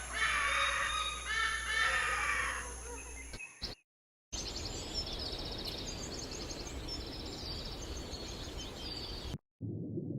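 Spliced animal-sound clips. First come a few seconds of pitched calls that bend in pitch, then a brief dead gap. Then small birds chirp rapidly over a steady outdoor noise for about five seconds. After another short gap, a low, muffled sound begins near the end.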